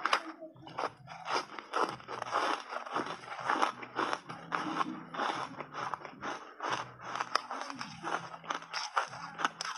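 Crunchy foam block ice, coated in matcha powder, being bitten and chewed: a dense run of crunches, many a second.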